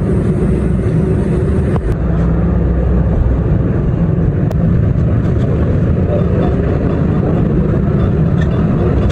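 Steady low rumble of vehicle noise, with a sharp click about two seconds in and another about four and a half seconds in.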